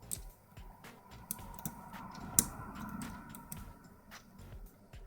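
Light metallic clicks and ticks of a hook pick probing the pin stack of a pin-tumbler lock held under tension, with one sharper click about two and a half seconds in.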